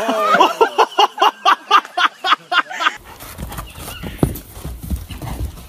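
A quick, even run of short vocal cries, about five a second, that stops suddenly about three seconds in. Then a horse's hooves thud on a dirt arena, with wind rumbling on the microphone.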